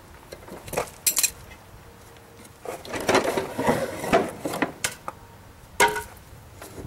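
Metal tools and parts being handled: scattered clinks and clanks, a busy spell of rattling in the middle, and a single sharp knock near the end.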